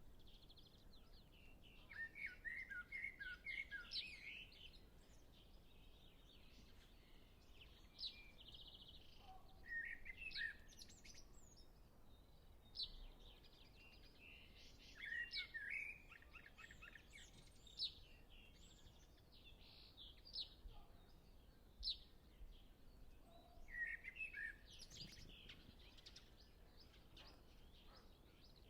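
Common blackbird singing: four warbled, fluty phrases a few seconds apart, each ending in thin, high twittering notes, with other birds calling faintly in the distance.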